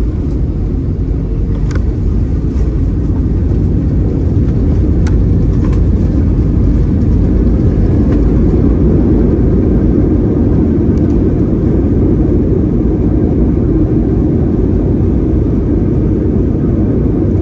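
Cabin noise of an Airbus A321-200 rolling out on the runway after landing: a loud, steady low rumble of engines and wheels, swelling slightly partway through, with a few light clicks in the first seconds.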